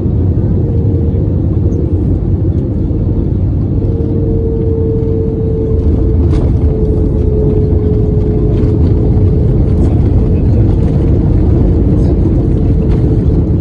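Airbus A321 noise during landing: a loud, steady low rumble with an engine tone held underneath that sags slightly lower partway through.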